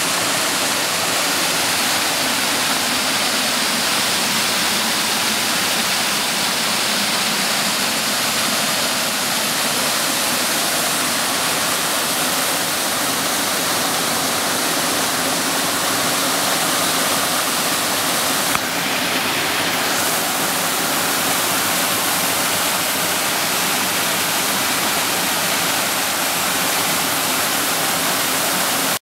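Water rushing steadily down a sloping bare rock slab at a waterfall: a loud, even hiss of fast, shallow water sheeting over the rock.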